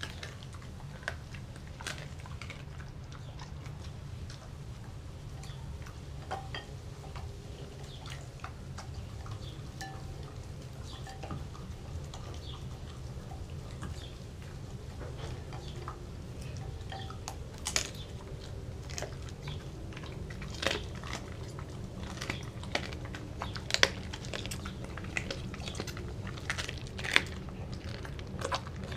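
German Shepherd mix chewing raw and dehydrated dog food out of a glass bowl, with scattered clicks and clinks of teeth and food against the glass. The clinks come sharper and louder in the second half.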